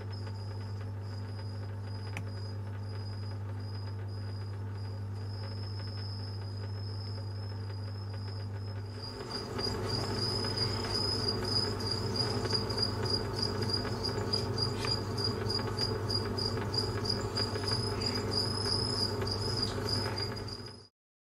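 A chorus of crickets chirping in a steady high-pitched drone over a low steady hum. About nine seconds in, a louder, rougher noise joins, and everything stops abruptly near the end.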